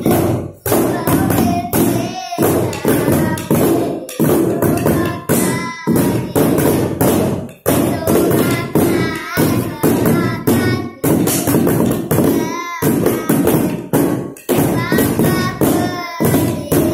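Girls singing a song naming Indonesia's provinces and capitals while beating a steady rhythm on improvised drums: cardboard boxes and upturned plastic containers struck with sticks and a mallet.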